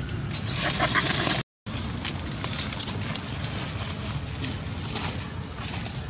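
Outdoor ambience of dry leaves rustling and crackling around macaques. A louder hissing rush comes in the first second and a half, then the sound cuts out for a moment and the faint crackly rustle goes on.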